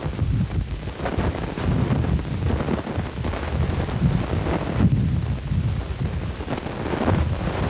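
Wind buffeting a camcorder microphone: a loud, uneven, gusty low rumble with rushing noise above it, swelling and dropping every second or so.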